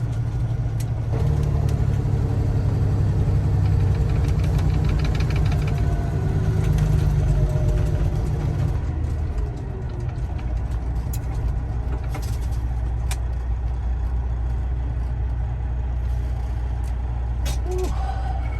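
Semi-truck diesel engine and road noise heard inside the cab while driving under a heavy load. The engine note drops and settles into a lower, steadier drone about nine seconds in.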